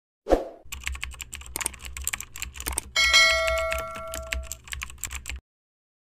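Channel-intro sound effects: a single low thump, then rapid keyboard-typing clicks over a low hum, with a bright bell-like chime about three seconds in that rings for a second and a half. It all stops suddenly about five seconds in.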